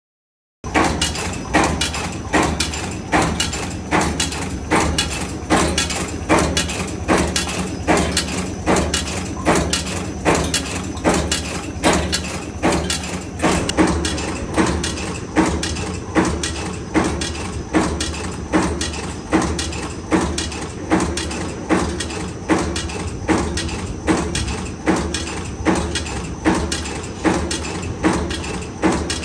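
TW13B-4S bolt former, a cold-heading machine, running in production forming M8 carriage bolts. Each machine cycle gives one heavy, regular forging clank, a little more than one a second, over a steady machine hum.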